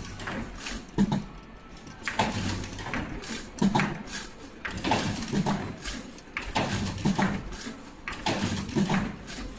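Richpeace surgical mask machine running: its output conveyor and indexing mechanism clack and knock in a repeating cycle, about one clatter every second and a half, over a steady low machine hum, with a brief high tone now and then.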